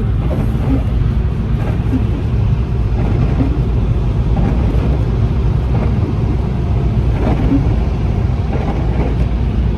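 Steady low rumble of a car driving along a snowy highway, heard from inside the cabin: engine and tyre noise.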